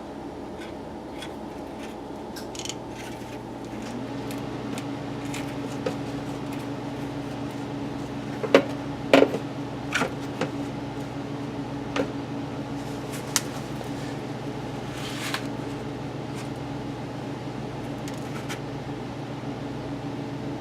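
A steady machine hum, joined about four seconds in by a motor that spins up and then runs at a steady pitch. Scattered sharp metallic clicks and knocks come through the middle, from hand work at the differential after the fill.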